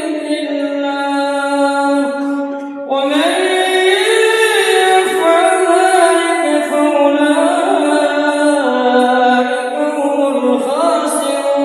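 A man's voice reciting the Quran in a melodic chanted style, holding long, slowly wavering notes; a new, louder phrase begins about three seconds in.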